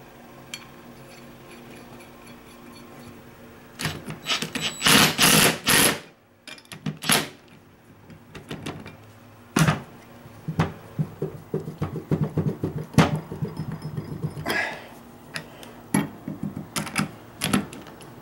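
Metal hardware and hand tools clattering and clicking on a workbench as nuts and bolts are fitted by hand to a new ball joint on a steel suspension control arm. The sound comes in irregular bursts of sharp clicks and knocks, loudest about four to six seconds in, over a faint steady hum.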